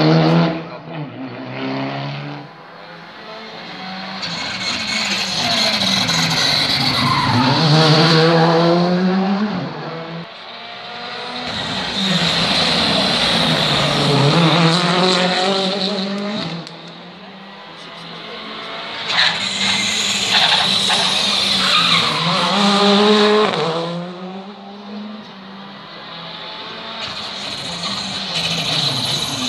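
Rally car engines revving hard through the gears, the note climbing and dropping with each shift. The sound swells and fades three times as cars drive through and away.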